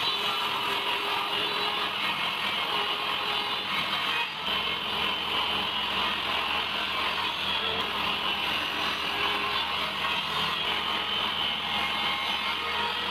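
Power tool running steadily while working wood, with a brief drop about four seconds in.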